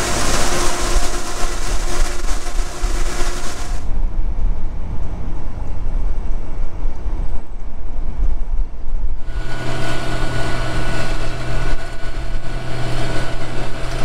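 Soybeans pouring from a gravity wagon into an auger hopper, an even hiss that stops about four seconds in. Then the low rumble of a pickup truck driving, heard from inside the cab, with a steady engine hum joining about nine seconds in.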